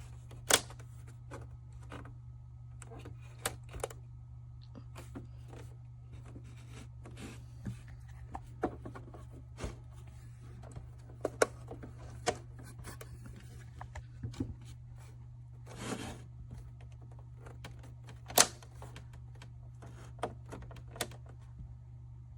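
Scattered, irregular clicks and taps over a steady low hum, the loudest about half a second in and again past the middle.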